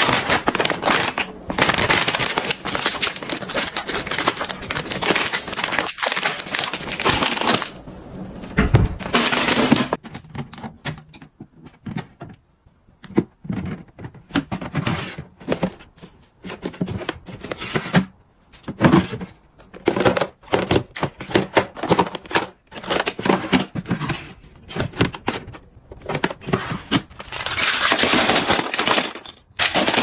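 Crinkling of a soft plastic wet-wipes pack being handled for about the first ten seconds. Then scattered rustles and light taps of plastic as items go into plastic storage bins, with a denser spell of handling noise near the end.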